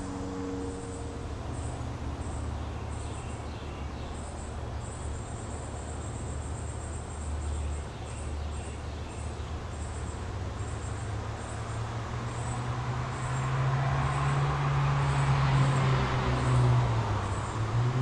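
Steady hum of a motor engine running nearby, growing louder over the last few seconds.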